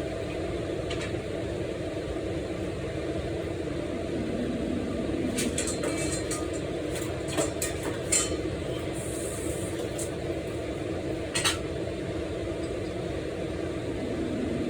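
Kitchen utensils and dishes clinking and tapping: a quick cluster of clinks about halfway through and one more sharp knock a few seconds later, over a steady low hum.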